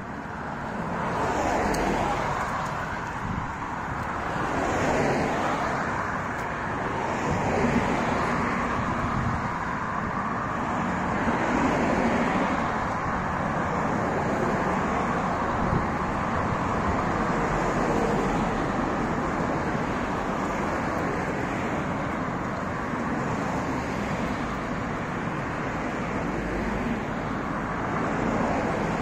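Road traffic on a street beside the sidewalk: a steady rush of tyres and engines as cars pass, swelling and fading several times in the first half.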